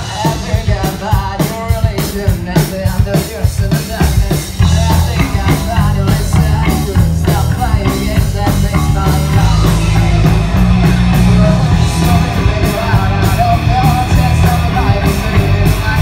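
A live rock band playing loud through a PA: distorted electric guitars, bass and drums, with a voice singing. The sound jumps louder about four and a half seconds in.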